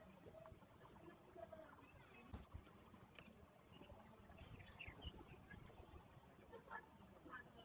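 Near silence: quiet room tone with a steady high-pitched whine, broken by a single knock about two and a half seconds in and a few fainter clicks.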